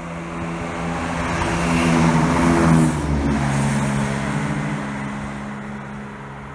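Diesel train engines droning as trains pass. The drone grows to its loudest about three seconds in, the engine note drops suddenly in pitch, and then it fades away steadily.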